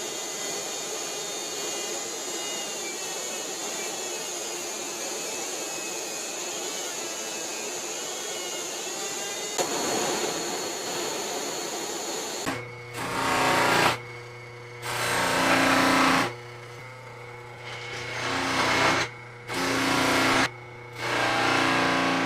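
A power tool runs steadily with a hissing whir for about twelve seconds. Then background music with a steady bass drone comes in as several loud phrases, and it cuts off right at the end.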